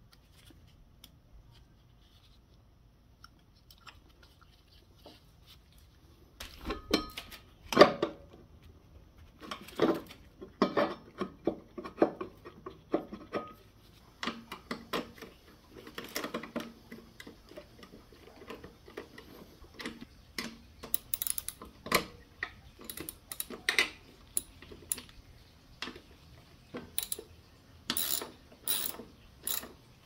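Hand tools clicking, tapping and knocking against a motorcycle's metal brake caliper during a pad change. There are a few quiet seconds, then irregular sharp clicks and clinks that come faster and closer together near the end.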